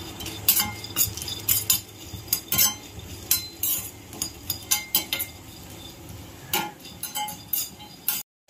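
A steel slotted spoon scraping and clinking against an iron kadai while peanuts are dry-roasted and stirred, the nuts rattling in the pan, in quick irregular strokes. The sound breaks off abruptly near the end.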